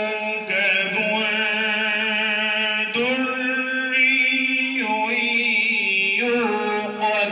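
A man's voice reciting the Quran (tilawat) in a long, melodic chant into a handheld microphone, holding each note with ornamental wavers. The pitch steps up about three seconds in and drops back near five seconds.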